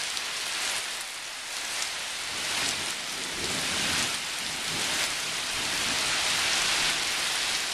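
Heavy rain falling steadily in a thunderstorm, an even hiss with no clear thunderclap.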